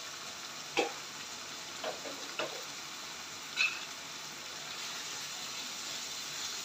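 Tori (gourd) curry sizzling steadily in its oil in a nonstick pan over a gas flame, in its final frying-down stage, with a few short sharp pops. A spatula begins stirring it near the end.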